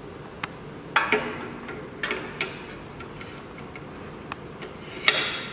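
Scattered metal clicks and knocks of a tubular key clamp being handled and fitted into a SEC-E9 key cutting machine. The loudest knock comes near the end, over a steady low background noise.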